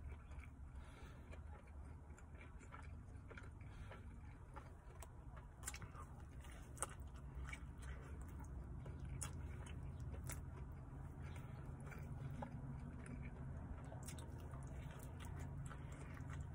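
Close-up chewing and biting of a slice of pepperoni pizza: soft mouth sounds with scattered sharp clicks, the sharpest about seven seconds in. A low steady hum runs underneath.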